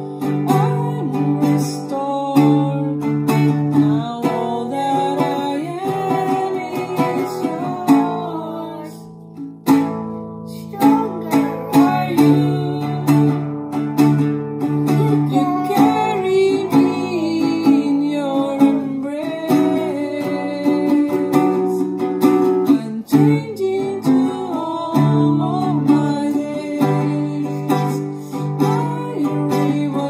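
Nylon-string classical guitar strummed in steady chords while a woman sings, a child singing along with her, with a short pause about ten seconds in.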